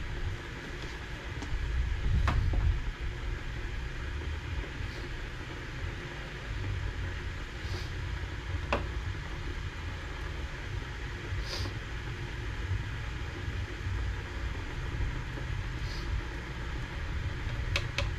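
Light clicks and taps of tiny measuring spoons against dye jars and plastic cups as powdered dye is measured out: a few scattered single ticks, then a quick run of sharp clicks near the end. Under them runs a steady low rumble that swells briefly a couple of seconds in.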